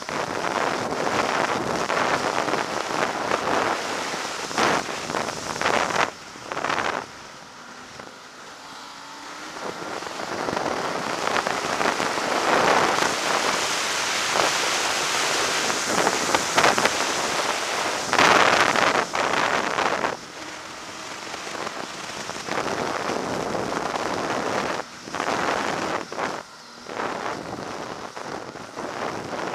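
Ski-Doo snowmobile running along a packed snow trail: engine and track noise mixed with wind rushing over the microphone. It eases off for a few seconds about a quarter of the way in, then picks up again.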